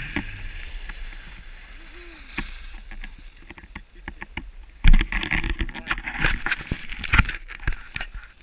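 Skis hissing over packed snow as the skier slows down, then a loud thump about five seconds in followed by crackling knocks and rustle from the pole-mounted action camera being handled.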